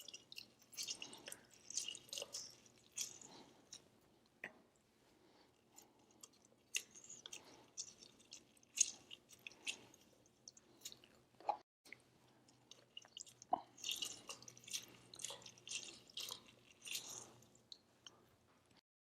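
Fresh limes being squeezed by hand for their juice: quiet, irregular wet squishing and crackling of the rind and pulp, with a few light knocks.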